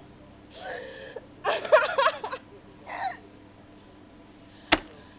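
A person with the hiccups making several short, squeaky voiced hiccup sounds, with a sharp click near the end.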